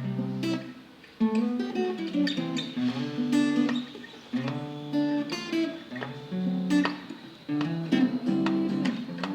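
Acoustic guitar playing a repeating pattern of picked bass notes and strummed chords, in a South African style.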